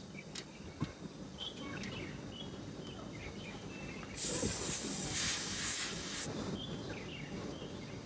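A few light clicks of handling, then about four seconds in a loud hiss of refrigerant gas escaping for about two seconds as a charging hose fitting is screwed onto the service valve port of an air conditioner's outdoor unit.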